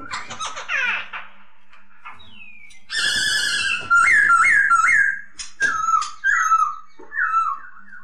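Black-throated laughingthrush (poksay Hongkong) singing loud, varied whistled phrases. A quick run of falling notes opens, then a short pause. About three seconds in comes a harsher drawn-out note, followed by three looping up-and-down whistles and a string of slurred downward notes.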